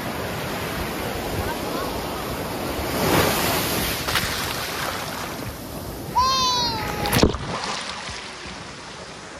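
Sea surf: waves breaking and foam washing over the sand, a steady rush of water with a louder surge about three seconds in. About six seconds in comes a brief high-pitched cry that falls in pitch. Just after seven seconds the surf sound drops abruptly and stays quieter.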